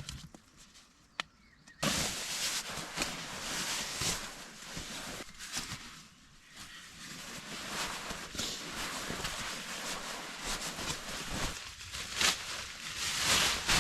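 Rustling and irregular light knocks and clicks of camping gear being handled and put away, starting about two seconds in and loudest near the end.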